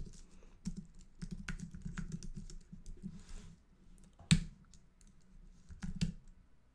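Typing on a computer keyboard: a quick run of key clicks, one louder single keystroke a little over four seconds in, then a few more keys about six seconds in.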